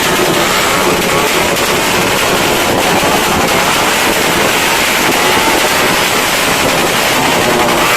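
A loud, steady din of many distant firecrackers and fireworks going off together, with no single bang standing out.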